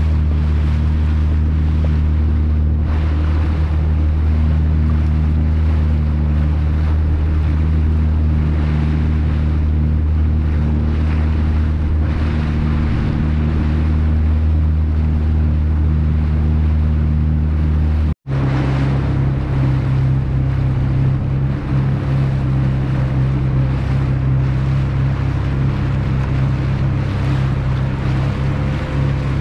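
Motorboat engine running steadily with a low hum, under the rush of wind and water passing the hull. About eighteen seconds in the sound drops out for a split second, and afterwards the engine hum sits at a different pitch.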